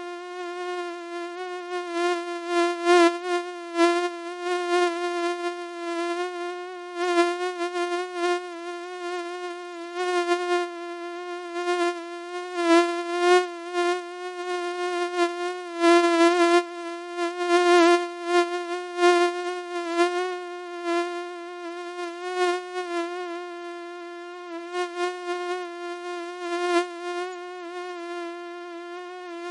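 Mosquito wingbeat whine: one steady buzzing tone with many overtones, its pitch wavering slightly while it swells louder and fades again every second or two.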